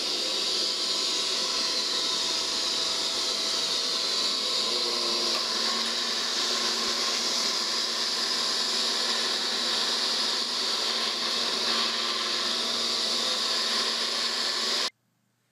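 Robot vacuum cleaner running, a steady whir of its motor and brushes, which stops abruptly near the end.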